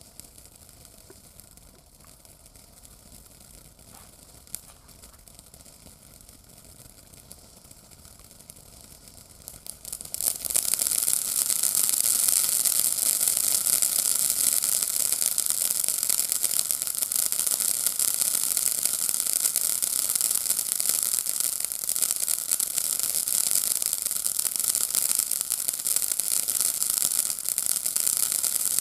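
Consumer firework fountain burning. For the first ten seconds or so it is quiet with a few scattered pops, then a loud, steady crackling hiss sets in suddenly and keeps going.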